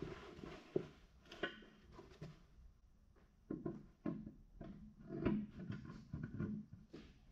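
Scattered light metallic knocks, clicks and clunks, with some shuffling, as the bell housing is handled and fitted onto an Eaton RTLO16913A transmission case.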